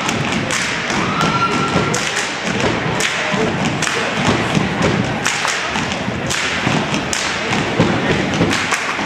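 Step team stomping and slapping in unison on a hardwood gym floor: a rhythm of heavy thuds mixed with sharper slaps.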